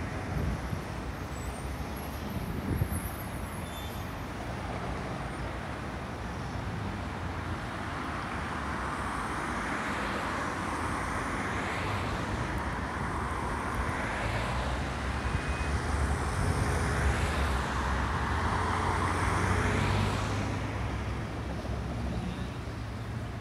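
Road traffic: a steady low rumble of engines, with about five vehicles passing one after another in the second half, their tyre hiss swelling and fading.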